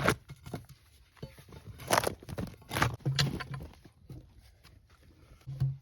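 Footsteps and handling noises, with four short sharp knocks spread over the first three seconds or so.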